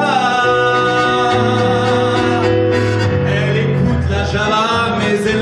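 A man singing a French chanson into a microphone, holding a long note with vibrato over instrumental accompaniment.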